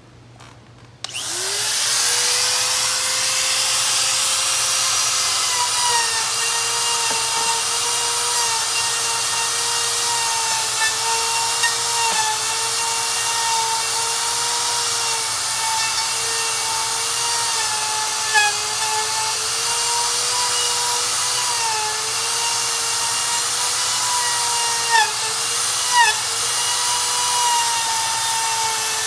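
A high-speed power tool motor starts about a second in and runs with a steady high whine, its pitch dipping briefly a few times as it bites into the rubber lugs of a lawnmower tire.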